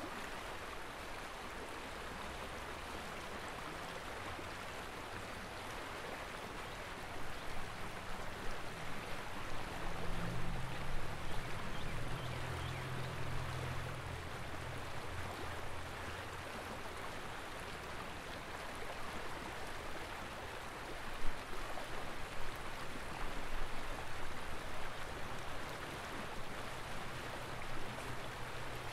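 Steady rushing noise of flowing river water, with a low hum coming in about a third of the way through and again near the end.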